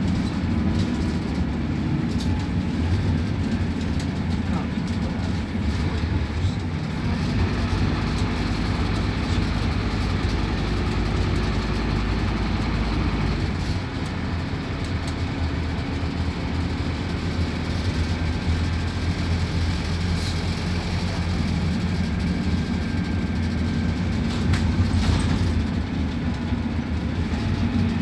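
Scania K280UB city bus's diesel engine running steadily under way, a constant low drone with road and drivetrain noise.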